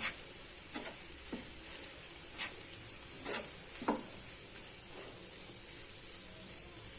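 Dry anchovies frying with onion, tomato and spice powders in a pan, a low steady sizzle, while a spatula stirs the mixture and knocks or scrapes against the pan about six times.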